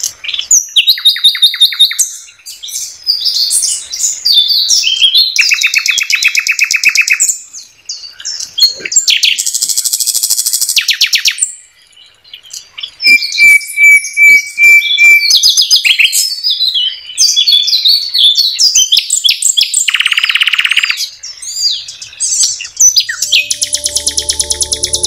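Common nightingale singing loud phrases of fast repeated trills and rattles, with a run of even whistled notes about halfway through, the phrases broken by short pauses. A low steady hum comes in near the end.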